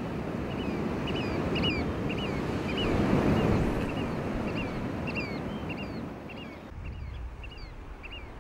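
Waves washing on the shore with wind on the microphone, the surf swelling about three seconds in and easing off later. Over it, a run of short chirping bird calls, two or three a second.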